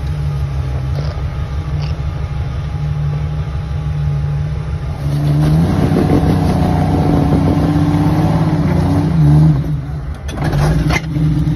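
Jeep Cherokee XJ with a swapped-in 5.7-litre V8 crawling over rocks: the engine runs low and steady, then revs up about five seconds in and is held under load. Near the end the engine drops off briefly and there are a couple of sharp knocks before it picks up again.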